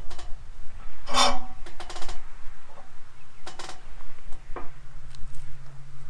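Knocks and clanks from a heavy eastern red cedar log being rolled over by hand on the steel bed of a portable band sawmill, several separate hits spread over a few seconds. A steady low hum sets in about three seconds in.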